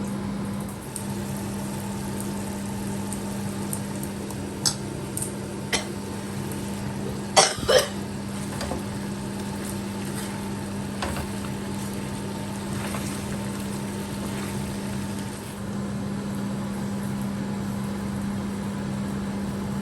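A spoon stirring chicken cooking in a pot, with a few clinks of the spoon against the pot, two sharp ones close together about seven and a half seconds in. A steady low hum runs underneath.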